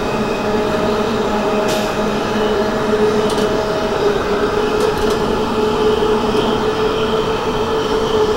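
CityRail electric passenger train running at speed, heard from inside the carriage: a steady rumble and rush with a held whine, and a few brief sharp clicks about two, three and five seconds in.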